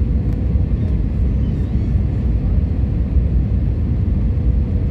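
Steady low cabin rumble of an Airbus A320-family airliner's jet engines and airflow, heard from inside the passenger cabin during the descent to land, with a faint steady hum above it.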